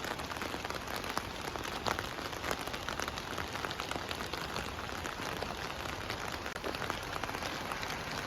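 Steady rain falling, with many individual drops ticking sharply on surfaces.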